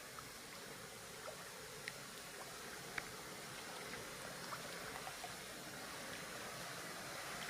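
Flowing stream water rushing faintly and steadily, slowly growing louder, with a few faint sharp clicks scattered through it.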